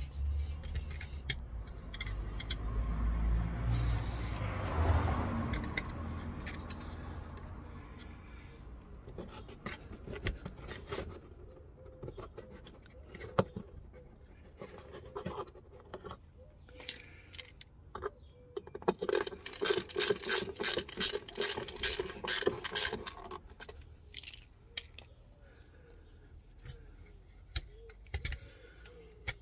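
Scraping and rustling of the plastic wheel-arch liner and metal parts as they are handled and refitted. About two-thirds of the way through comes a run of rapid, even ratchet-wrench clicks, with scattered single clicks around it.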